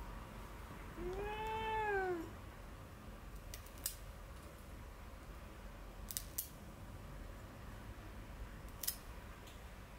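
A domestic cat gives one long complaining meow, rising then falling in pitch, about a second in, protesting at having its claws trimmed. Then the cat nail clippers cut its claws with four short, sharp clicks, two of them close together.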